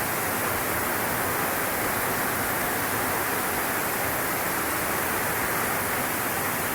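Heavy rain pouring down: a steady, even rush of water noise with no breaks.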